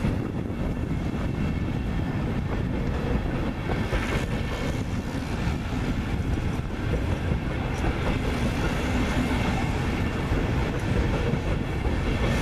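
Deutsche Bahn InterCity coaches rolling past at speed, with a steady rumble of steel wheels on the rails and a few clacks as the wheels run over rail joints.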